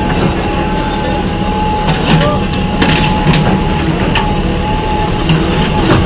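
Bobcat backhoe loader working: its diesel engine runs steadily with a constant whine, and the bucket knocks and scrapes in broken concrete and brick rubble, giving a few sharp knocks.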